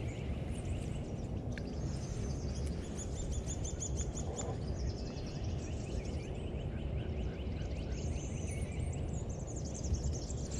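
Wild birds singing in fast series of high chirping trills over a steady low background rumble.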